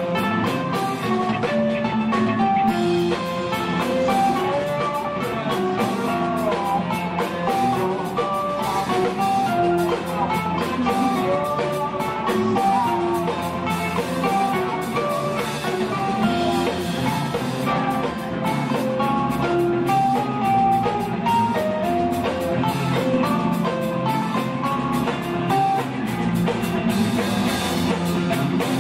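Live band playing: electric guitars ringing out quick runs of short, clear notes over a drum kit with cymbals, at a steady loudness.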